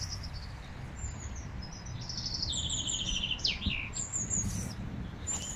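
Songbirds singing in spring trees: high chirps and whistles, with a fast trill of evenly repeated notes about two and a half seconds in, over a low steady rumble.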